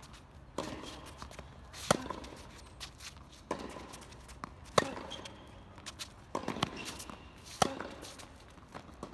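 Tennis rally on a hard court: sharp pops of a tennis ball struck by rackets back and forth. The near player's hits are the loudest, three of them about three seconds apart, with fainter hits and bounces from the far end in between.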